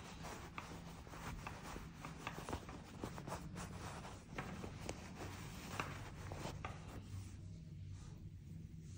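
Hands stuffing polyester fiberfill into a fabric tube: close, steady rustling and rubbing of fibre and cloth, easing off near the end.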